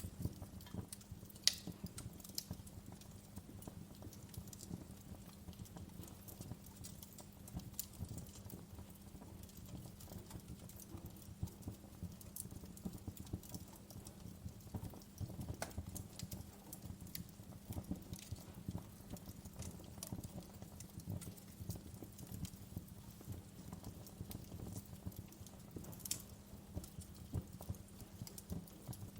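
Wood fire burning in a fireplace: logs crackle low and steadily, with a few sharp pops from the burning wood scattered through.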